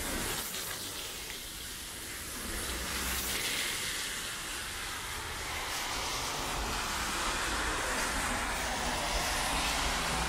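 Traffic hissing on a wet city road in the rain, tyres swishing over wet pavement, the hiss swelling as a vehicle comes closer in the second half.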